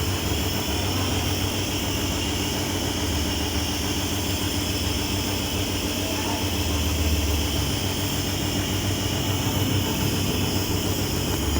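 Compressor nebulizer running with a steady motor hum while it delivers a nebulized treatment to loosen a child's airways.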